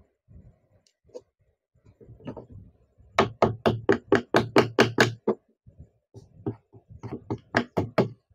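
Hammer driving nails into half-inch plywood. A few faint taps come first, then a fast run of about ten blows, roughly five a second, starting about three seconds in. After a short pause comes another series of blows near the end.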